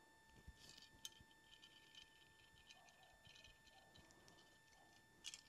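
Near silence with faint scattered metal clicks and ticks from a hand flaring tool being worked onto the end of a brake line for an AN flare.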